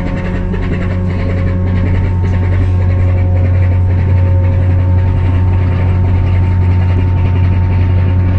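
A ferry's engines running with a steady, loud low hum and a few faint steady tones above it.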